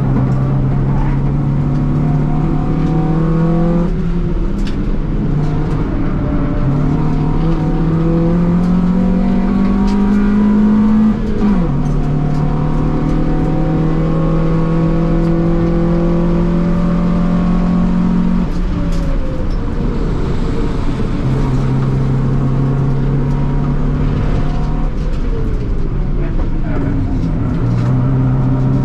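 Honda Civic's D-series four-cylinder engine at full effort on a track lap, heard from inside the cabin. Its pitch climbs steadily through the revs, drops sharply at an upshift about eleven seconds in, then holds steady for long stretches with a few dips as the driver lifts for corners.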